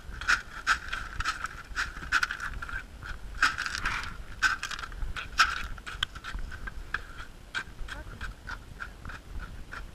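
Irregular knocks and scrapes of crushed stone being tipped from a galvanized bucket into wet concrete and tamped down with an iron pipe.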